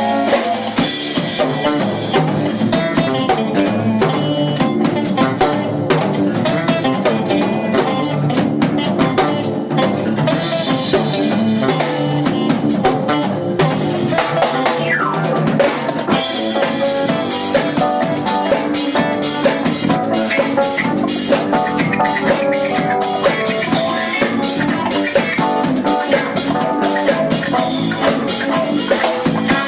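Live fusion quartet playing: drum kit, electric bass, electric guitar and keyboards together, with a busy stream of drum hits.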